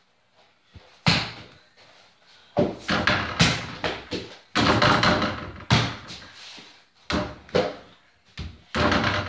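Mini basketball banging against a hoop hung over a wooden door: a string of thuds and knocks as the ball hits the backboard and door, rattling the door-mounted hoop, and bounces on the floor. The hits come about a second in, in a thick cluster from about two and a half to six seconds, and again near the end.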